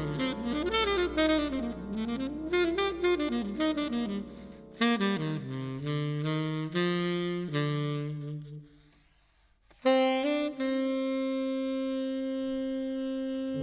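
Tenor saxophone in a slow jazz ballad: fast up-and-down runs over double bass, then a few held notes, a pause of about a second, and one long held note.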